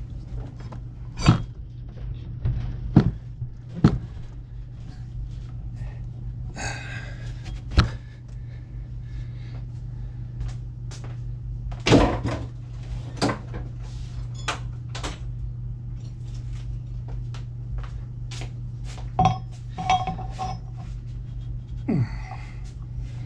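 Scattered clicks and knocks of metal hydraulic-cylinder parts being handled and worked together during reassembly, a few of them louder, over a steady low hum.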